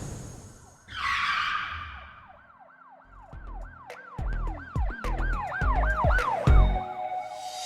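Produced sound-effect sting: a whoosh about a second in, then a siren-like wail rising and falling about three times a second over low bass hits that grow louder toward the end.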